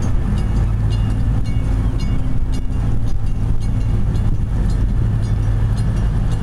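A boat's engine running steadily, a low, even drone, with faint light clicks about twice a second above it.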